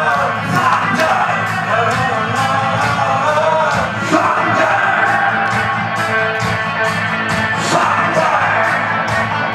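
A man singing into a microphone over a loud karaoke backing track with a steady drum beat.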